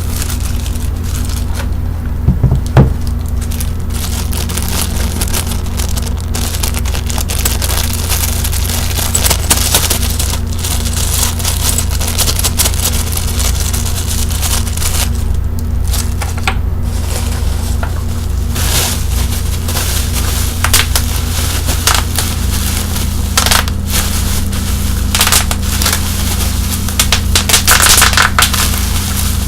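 Bubble wrap being handled and popped: irregular sharp pops and crinkly crackles, with louder pops about two seconds in and a busier run near the end. A steady low hum lies underneath.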